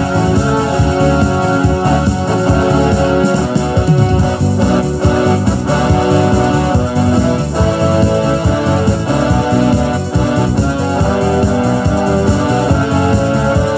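Electronic keyboard playing a gospel song instrumentally, a melody over held chords.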